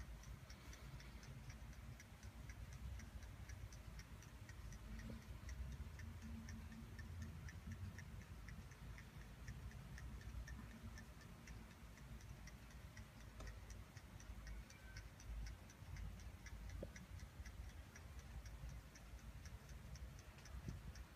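Vintage saw wall clock's movement ticking: faint, quick, even ticks.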